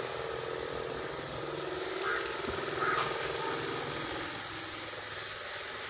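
A steady machine-like hum with two short bird calls, about two and three seconds in.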